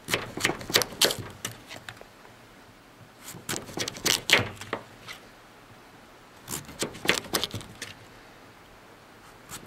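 Spyderco Paramilitary folding knife slicing through a zucchini and knocking on a wooden cutting board, in three quick runs of short sharp cuts with pauses between.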